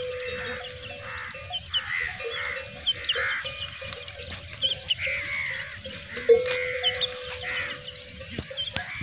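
Livestock bleating over and over in short calls, with small birds chirping and a steady low tone underneath.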